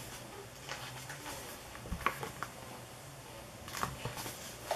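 A hardcover book's paper pages being leafed through by hand, making a few soft rustles and flicks, the clearest about two seconds in and near the end.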